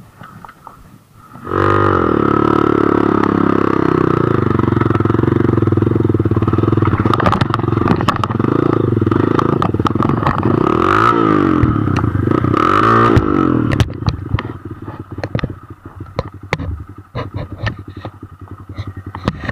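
Dirt bike engine revving hard under load, coming in loud about a second and a half in, its pitch rising and falling again and again. About fourteen seconds in it drops to a quieter, uneven running, with rattling and clatter from the bike.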